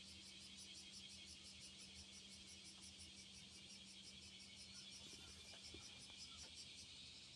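Insects chirping in a fast, even, high-pitched pulse, faint, over a faint steady low hum.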